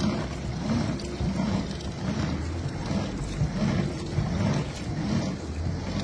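Pedal-driven washing machine, an old washing machine tub turned by a bicycle through a 1:13 gearbox, churning water and clothes: a rhythmic swishing slosh about every 0.7 seconds.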